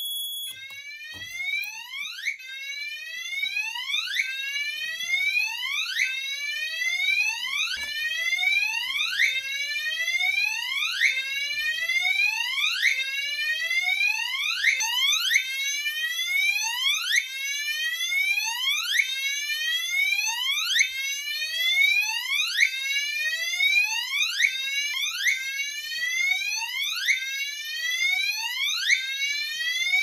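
Fire alarm notification appliance sounding a repeating rising whoop tone, about one sweep a second, signalling a supervisory condition set off by the duct detector's test switch. A short steady high beep sounds just as it starts.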